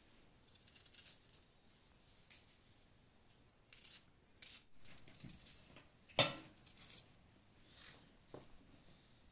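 Small kitchen knife slicing an onion held in the hand: scattered crisp cuts, with onion slices falling onto a metal tray. One louder knock on the tray about six seconds in.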